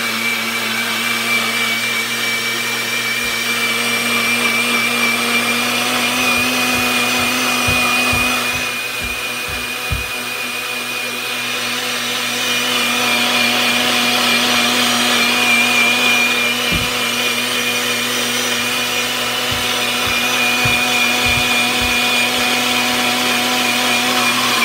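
Personal cup-style blender's motor running steadily with a high whine, blending milk, banana, strawberries and ice cubes into a milkshake. There are a few low knocks partway through, and the motor cuts off at the very end.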